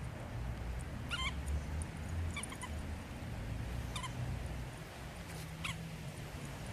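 Short high squeaks, four in all, spaced about a second and a half apart, from a miniature poodle at play with its squeak.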